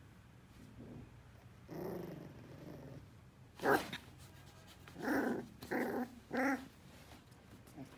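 Young English cocker spaniel puppy growling and yapping: a low, drawn-out growl about two seconds in, then a sharp yap, then three short yaps in quick succession.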